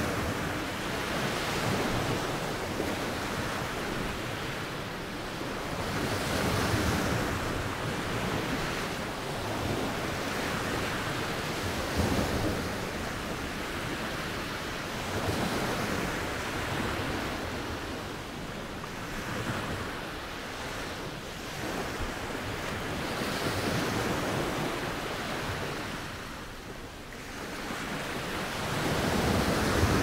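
Sea waves washing in and drawing back, swelling and fading every five seconds or so.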